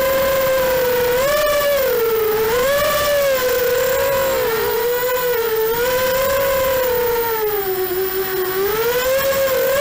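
Racing quadcopter's Emax 2204 2300kv brushless motors spinning 5045 three-blade props, a steady whine heard from the onboard camera whose pitch rises and falls with the throttle as it flies, dropping lowest near the end.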